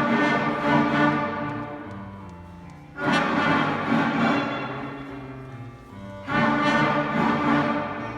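Student string orchestra playing a piece together, with loud bowed chords that swell in about every three seconds and die away between them.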